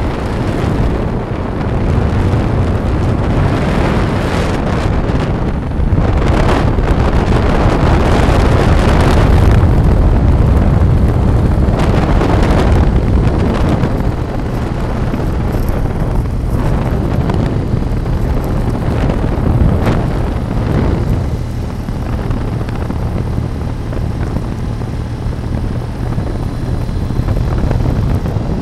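Wind rushing over the microphone of a moving vehicle, with road and motor noise underneath, swelling and easing in gusts. A steady low hum joins it about halfway through.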